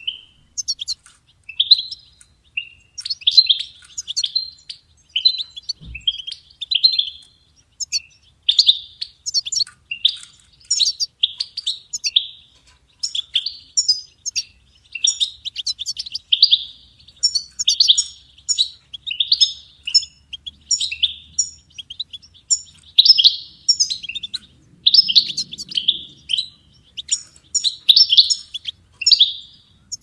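European goldfinch singing: a fast, continuous run of twittering chirps and trilled phrases with brief pauses between them.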